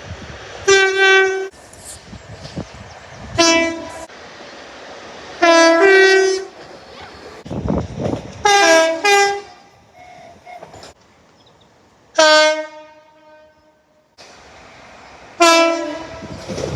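Southeastern passenger train horns sounding in a run of about six short blasts, several of them two-tone, switching between a lower and a higher note. A steady train rumble runs between the blasts.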